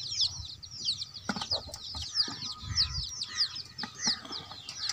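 Many birds chirping at once, a steady chorus of short, high, falling chirps. Under it come a few soft knocks and rustles as a cloth is spread inside an aluminium idli pot, about a second and a half in and again around two to three seconds in.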